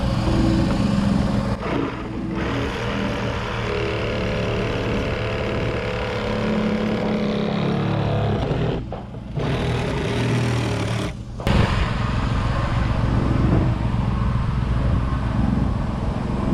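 Reciprocating saw cutting through the top of a plastic barrel, over the steady running of a construction machine's engine.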